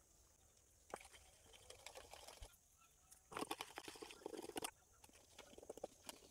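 Wire whisk working through cake batter in a steel bowl: faint quick clicks and scrapes that start about a second in and come thickest in the middle.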